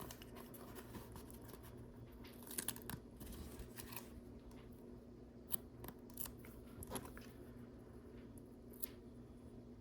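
Faint handling of small LEGO plastic pieces and a sticker sheet: scattered light clicks and brief crinkling, with a few sharper clicks in the second half.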